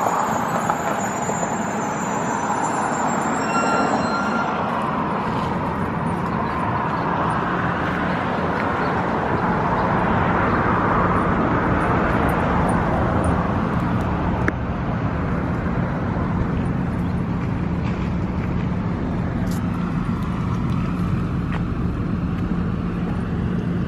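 Road traffic noise: a steady wash of passing vehicles, with a low hum building in the second half.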